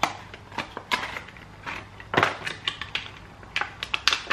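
Packaging being opened by hand to get a fishing lure out, crinkling and crackling in irregular sharp clicks, the loudest about two seconds in and again near the end.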